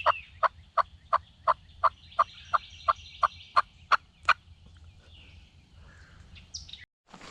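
Turkey yelping: an even series of about a dozen short calls, roughly three a second, stopping about four seconds in. A faint high chirp follows near the end.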